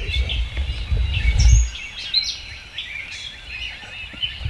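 Several songbirds chirping and singing at once, short high calls overlapping. A low rumble underneath, loudest about a second and a half in, cuts off suddenly.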